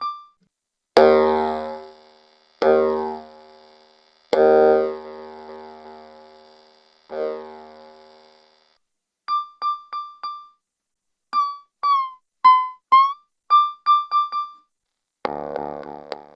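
Home-built analogue percussion synthesizer sounding its voices: four sharply struck pitched tones, each ringing and dying away over a couple of seconds, then a quick run of short beeps at a higher pitch, some sliding up or down, and a denser buzzy tone starting near the end.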